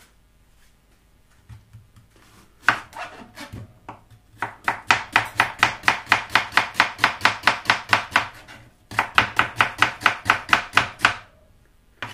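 Kitchen knife chopping an onion on a plastic chopping board. After a few scattered cuts it settles into two fast, even runs of about four to five chops a second, with a short break between.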